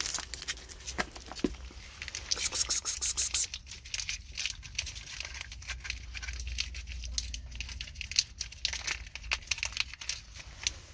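Crinkling and rustling with many sharp crackles and clicks, thickest about two to four seconds in and again near the nine-second mark.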